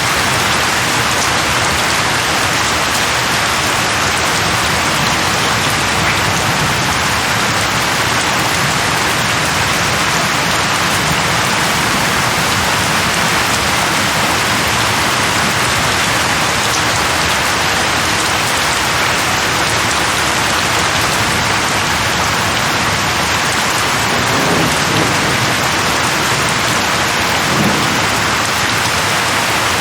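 Steady rain falling, an even hiss of drops on surfaces, with two brief low sounds near the end.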